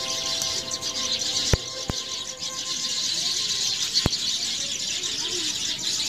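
Dense, steady chirping of many small birds, with a few sharp clicks.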